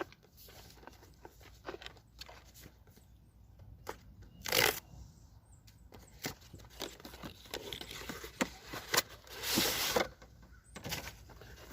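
Cardboard box packaging being handled and torn open: scattered clicks and rustles, with a short loud tear about four and a half seconds in and a longer one around nine to ten seconds in.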